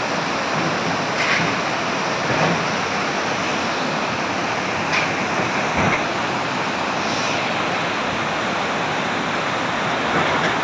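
Muddy floodwater rushing past in a fast, churning torrent: a steady, loud wash of water noise, with a few brief knocks scattered through it.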